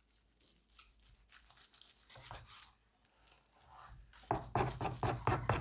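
Slicing knife sawing through the crusty bark of a smoked brisket on a cutting board: faint crunching and tearing strokes. In the last second or so come louder, quick knocks and handling sounds against the board.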